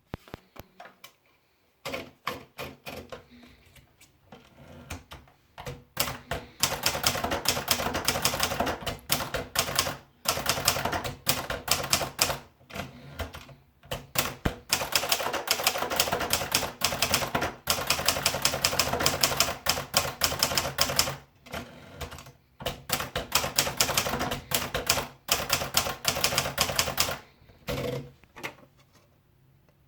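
Hermes Baby portable manual typewriter being typed on: fast runs of key strikes broken by short pauses.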